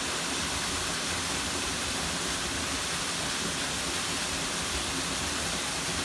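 Waterfall on a mountain stream, a steady rush of falling water.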